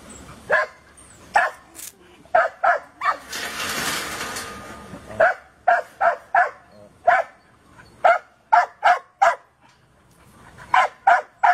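Dog barking repeatedly in short clusters of two to four barks. About three seconds in, a rushing noise lasts roughly two seconds.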